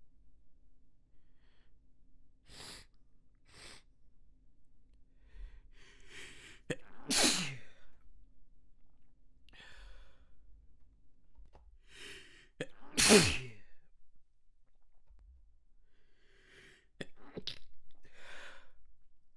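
A person sneezing repeatedly in a sneezing fit, some sneezes stifled. Two louder sneezes come about 7 and 13 seconds in, each after a breathy build-up, with shorter, quieter sneezes and breaths before and after.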